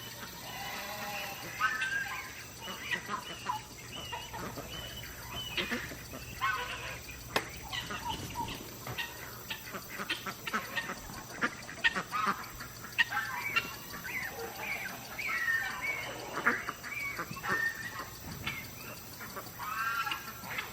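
Farm poultry calling over and over, short pitched honks and squawks throughout, with scattered sharp clicks.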